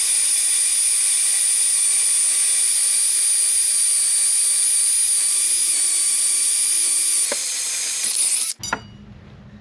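Electric drill running at high speed into a TL-15 safe: a loud, steady, high-pitched whine that cuts off suddenly about eight and a half seconds in.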